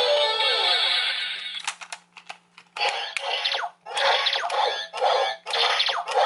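Electronic Power Rangers Beast Morphers toy sounding through its small speaker. A music jingle fades out, a few quick clicks follow, then comes a string of short electronic sound effects with brief gaps between them.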